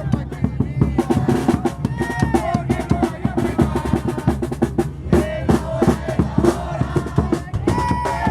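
Tropa chirimía band playing: bass drum and snare drum beating a steady rhythm under a wind-instrument melody whose notes bend up and down.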